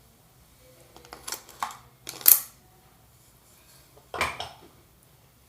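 Comb strokes through a doll's damp synthetic hair: a few short scratchy swishes, the loudest about two seconds in and another about four seconds in.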